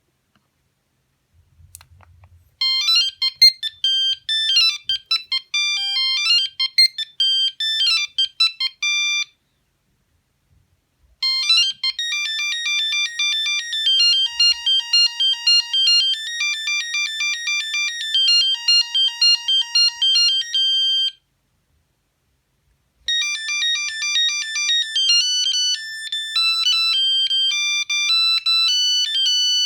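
Sony CMD-CD5 mobile phone playing its built-in ringtones one after another: three different high-pitched electronic beeping melodies, each stopping and followed after about two seconds of quiet by the next.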